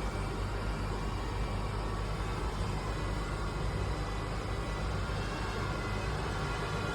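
Ultenic D10 robot vacuum running, a steady whirring hum of its motor and suction.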